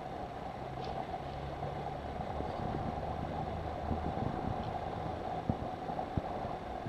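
A steady mechanical hum with a constant mid-pitched whir, and a few faint taps in the second half.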